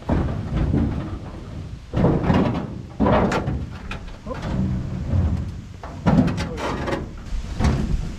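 A metal pickup truck bed being slid and shifted on the truck's frame, scraping and clunking with several heavy knocks at irregular intervals.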